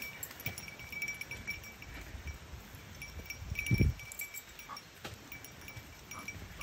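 A small bell jingling in short, irregular tings with the walker's steps. A low thump on the microphone a little past halfway is the loudest sound.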